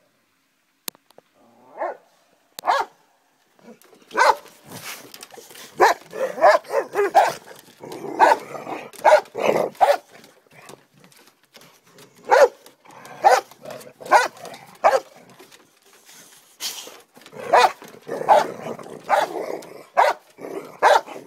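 Boxer dogs barking in play: a few single barks in the first few seconds, then runs of quick barks.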